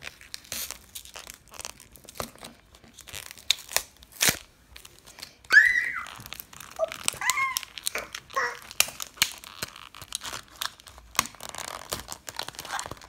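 Plastic film and blister-pack packaging being crinkled, crackled and torn open by hand. A few short, high-pitched squeaks come in the middle.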